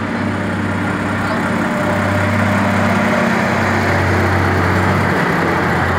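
Diesel engine of a Unimog-type truck idling steadily, growing a little louder over the few seconds.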